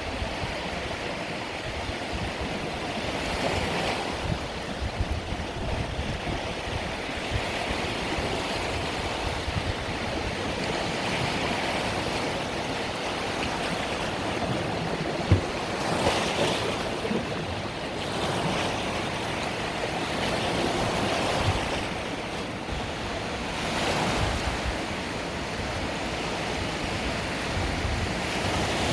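Mediterranean sea waves breaking and washing up the shore in a continuous wash that swells every few seconds as each wave comes in. A single brief knock comes about halfway through.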